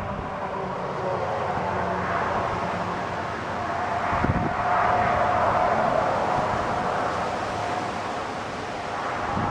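Strong storm wind rushing steadily, with a faint steady hum running through it for several seconds and a brief low gust thump on the microphone about four seconds in.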